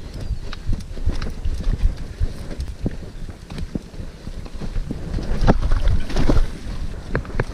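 Wind buffeting an action camera's microphone as a mountain bike rolls over a rough dirt and rock trail. Frequent knocks and rattles come from the bike and the ground, thickest about two-thirds of the way in.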